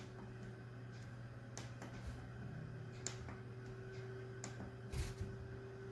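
Steady low hum of a freshly built desktop PC running just after power-on, its graphics card fan spinning, with a few faint clicks scattered through.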